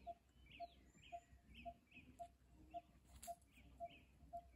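Faint, evenly repeating animal calls in the surrounding vegetation: a short low pip and a higher chirp sounding together about twice a second, with a single sharp click about three seconds in.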